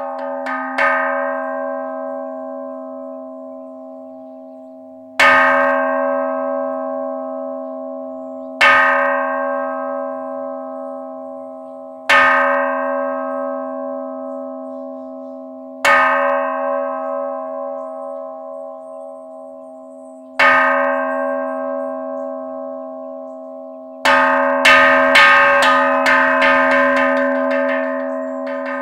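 Large bronze temple bowl bell struck as the calling bell that opens a Jodo Shinshu service: six single strokes a few seconds apart, each left to ring out in a long, slowly fading hum, then a quick run of strokes near the end.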